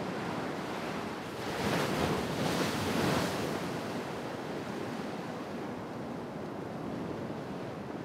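Ocean surf breaking on a rocky shore: a steady wash, with one wave swelling louder about a second and a half in and subsiding by about four seconds.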